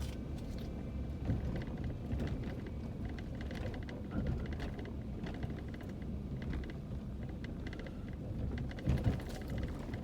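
Inside a vehicle driving slowly over a very bumpy dirt road: a steady low road rumble with constant small rattles and clicks from the cabin, and a few louder knocks as the wheels hit bumps.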